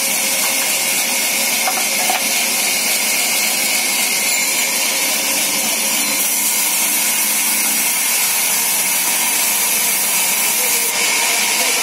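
Sawmill band saw running and ripping a timber plank: a steady, loud hiss.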